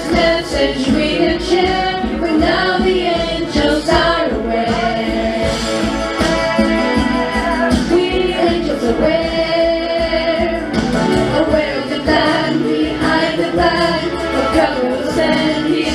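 Youth choir, mostly girls' voices, singing a song from a Christmas musical with instrumental accompaniment.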